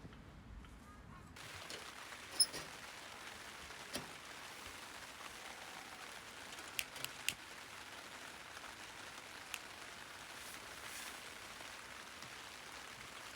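Rain falling steadily, a soft even hiss with a few sharper drop hits scattered through it. The rain sound comes in suddenly about a second in.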